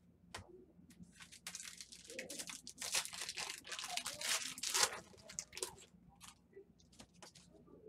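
Foil wrapper of a trading-card pack being torn open and crinkled: the crackling builds about a second and a half in, is loudest in the middle, then thins to a few scattered crinkles.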